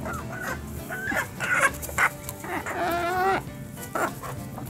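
Backyard hens clucking as they feed, short calls in quick succession and one longer, wavering call about three seconds in.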